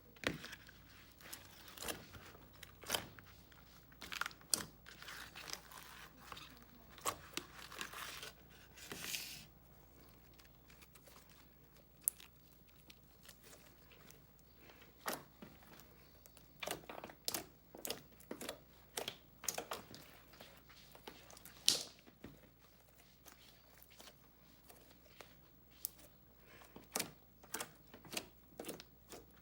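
Handmade slime being squished and stretched by hand, giving irregular sticky pops and crackles, with a lull about a third of the way through.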